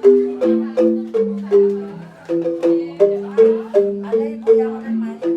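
Rindik, the Balinese bamboo xylophone, played with mallets: a steady stream of struck, briefly ringing notes about three a second, a low part and a higher part sounding together.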